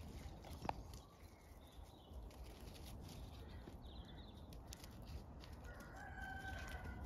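A rooster crows once near the end, a single drawn-out call, over a low rumble.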